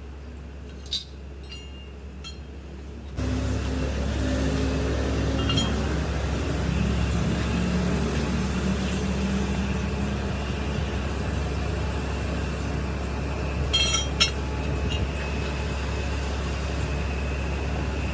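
A few light clicks, then about three seconds in a workshop machine switches on and runs steadily with a low hum and a noisy rush. A few sharp clicks or taps near the end.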